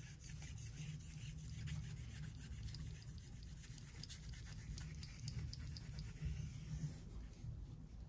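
Faint, irregular scraping of a knife blade rubbed on a 5000-grit waterstone.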